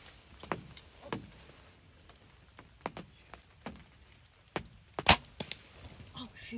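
A compound bow (Elite Ember) is shot at a deer: one sharp, loud snap about five seconds in as the string is released and the arrow hits the buck. A few faint ticks come before it.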